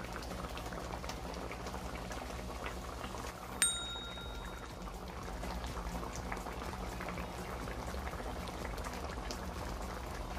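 Thick balbacua stew of beef skin bubbling and popping steadily in the pot at a simmer. About three and a half seconds in, a short high ping rings out once.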